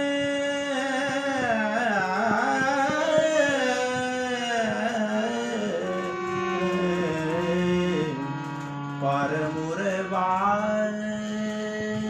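Pushtimarg Haveli Sangeet kirtan: a singer draws out long, sliding melodic phrases over a steady drone.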